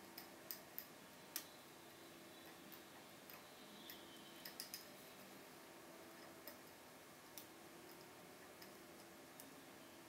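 Faint, irregular metallic clicks of a lock pick working the pins inside a Keso 2000 thumb-turn cylinder. They come a few at a time, the loudest about a second and a half in and a quick run of three just before the middle.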